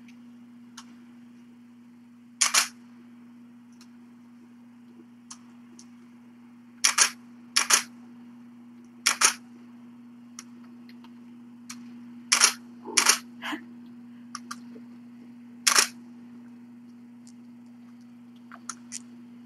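Camera shutter clicking about seven times at irregular intervals, one to three seconds apart, with a few fainter ticks between, over a steady low electrical hum.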